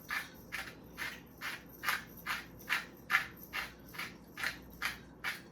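Salt grinder being twisted over a bowl of flour, giving a steady run of short crisp grinding strokes at a bit over two a second.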